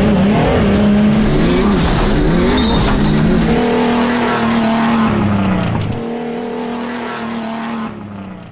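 Engines of two modified off-road trucks, a 1991 Jeep Cherokee XJ and a 1991 Ford Explorer, racing at full throttle on a dirt track. The revs rise and dip rapidly for the first three seconds or so, then are held high and slowly fall, fading near the end.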